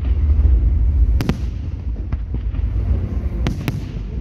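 Aerial fireworks shells bursting: sharp bangs at irregular intervals, a loud one about a second in, two fainter ones after, and a close pair near the end, over a steady low rumble.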